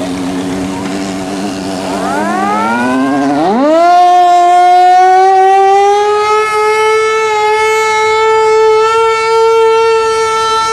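Steam whistles blowing. A low, steady multi-tone whistle opens, then a higher whistle sweeps up in pitch about three and a half seconds in and holds one loud, slightly rising note.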